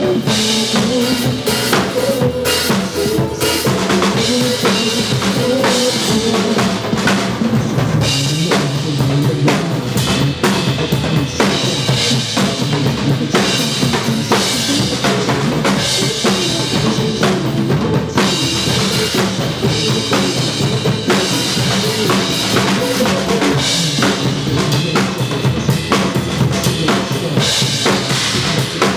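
Drum kit played continuously with a steady beat of kick and snare strikes, along with a recorded pop song whose melody runs underneath.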